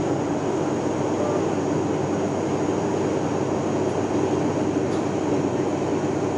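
Steady cabin noise of an airliner in flight: engine and rushing-air noise at a constant level, with a low hum underneath.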